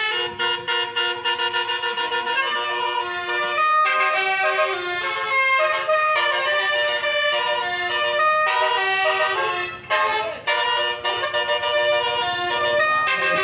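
Telolet bus horn, a multi-trumpet air horn with nine trumpets, playing a quick tune of shifting chords, breaking off briefly about ten seconds in.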